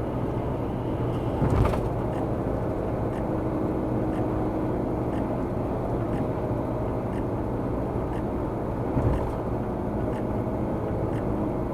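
Steady road and engine noise of a car driving at speed, with two brief thumps, one about two seconds in and one about nine seconds in.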